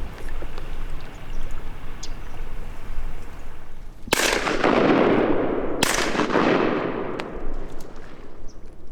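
Two shotgun shots about a second and a half apart, each followed by a long echoing decay.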